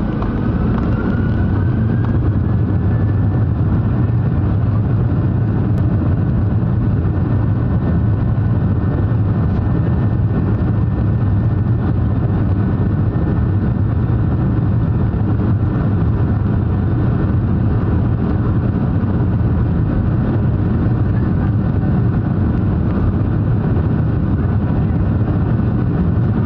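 Boeing 737-700's CFM56-7B turbofans heard from inside the cabin, spooling up to takeoff thrust with a rising whine over the first few seconds. They then run steadily at high power, a loud constant drone with a strong low rumble under a steady whine.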